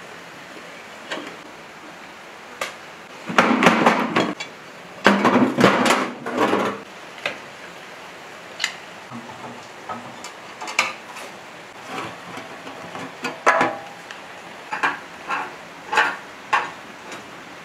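Steel hand tools clanking and knocking against a rusty old diesel engine as it is taken apart. There are two bursts of rattling clanks about three and five seconds in, then scattered single taps and knocks.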